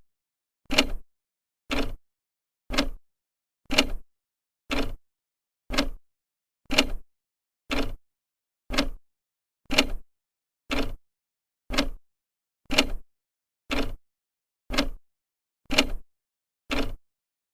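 Old clock's second hand ticking, one sharp tick each second, evenly spaced with silence between ticks.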